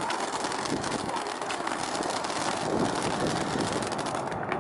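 Ground fountain firework spraying sparks: a steady rushing hiss with dense crackling, the top of the hiss thinning out near the end.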